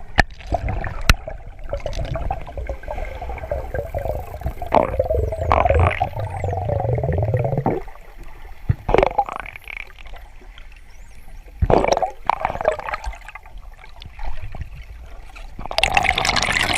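Water rushing and gurgling over a low rumble, broken by several sharp splashes or knocks, with a louder rush of water near the end.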